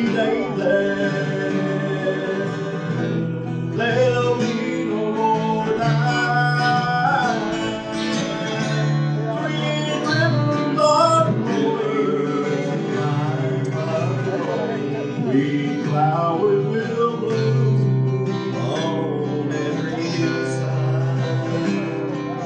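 Country gospel music led by acoustic guitar.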